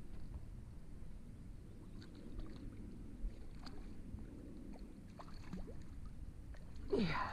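Small splashes and sloshing water as a hooked trout is played at the surface and a landing net is pushed into the water toward it, over a steady low rumble. Just before the end there is a brief, louder sound with a falling pitch.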